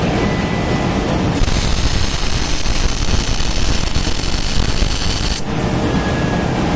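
Electric stick-welding arc crackling and sizzling steadily as it lays a bead on thin 2 mm steel, the hiss turning brighter for a few seconds in the middle.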